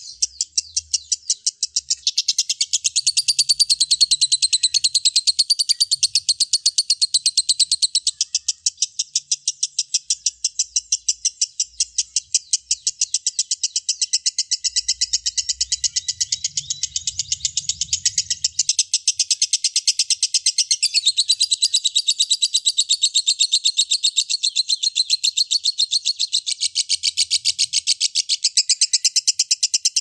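Lovebird chattering: a long, unbroken run of rapid, high-pitched chirps, several a second, going on without a pause.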